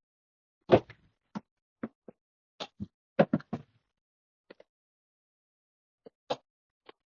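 A series of about a dozen short, irregular knocks and taps, the loudest a little under a second in and about three seconds in, then fewer and fainter taps.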